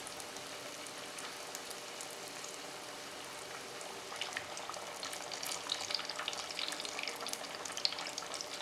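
Two cracker-crumb-coated Korean corn dogs deep-frying in a pot of hot oil: a steady sizzle, with crackling pops becoming more frequent and louder from about halfway through.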